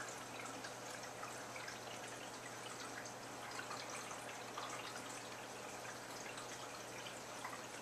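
Aquarium filter water trickling and dripping into the tank, with many small splashes, over a steady low hum.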